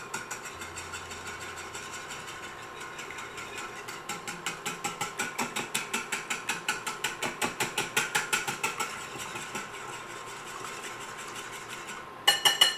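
Wire whisk beating eggs in a glass dish: a fast, steady clicking of the wires against the glass, about six strokes a second, growing louder in the middle. A few sharper clinks near the end.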